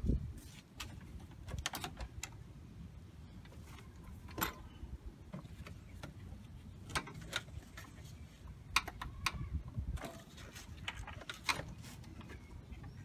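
Scattered light metallic clicks and knocks of hand tools working fasteners and parts in a car's engine bay, over a low steady background rumble.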